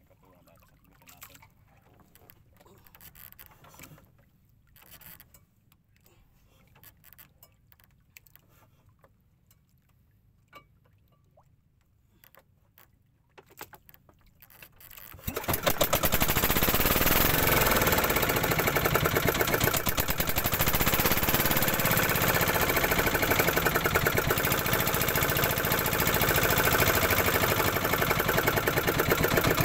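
Outrigger fishing boat's engine starting suddenly about halfway through, then running loud and steady with a rapid, even beat. Before it starts there are only a few faint knocks.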